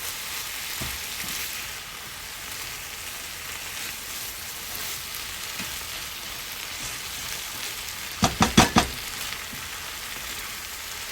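Pepper shrimp frying in a pan with a steady sizzle, the dish nearly done. About eight seconds in comes a quick run of about five knocks.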